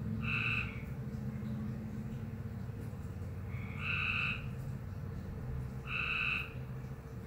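A frog giving three short, high calls, each about half a second long and a few seconds apart: an unusual call for a frog.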